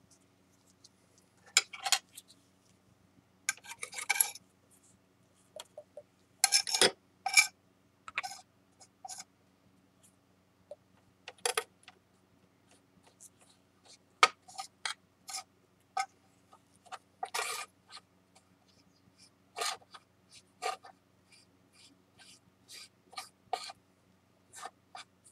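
Metal spatula scraping and tapping on a glass board as it chops and spreads a pile of dry flour, in short irregular strokes with pauses between.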